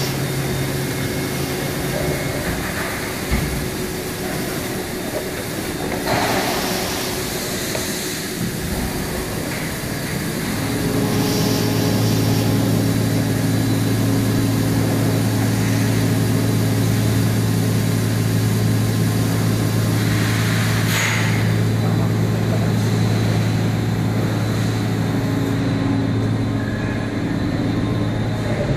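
Steady electric-motor hum of workshop machinery that steps up louder and fuller about ten seconds in and then holds. Two short hissing bursts break through, one about six seconds in and one about twenty-one seconds in.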